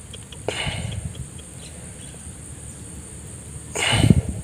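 Hands squelching and sloshing in a water-filled mud hole, with two short wet bursts, one about half a second in and a louder one near the end. A steady high insect trill runs underneath.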